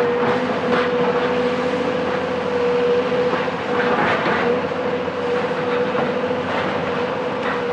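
Cat 374 hydraulic excavator working demolition: its Cat C15 diesel engine and hydraulics hold a steady whine, with irregular crunching and scraping of rubble.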